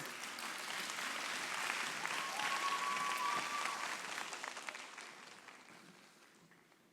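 Audience applauding in a large hall, holding steady and then dying away about five to six seconds in.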